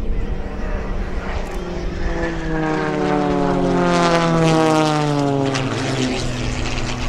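Two piston-engined aerobatic planes, an Extra 330 and an MX-2, making a low pass. The propeller and engine drone grows loudest about four to five seconds in and falls steadily in pitch as they go by.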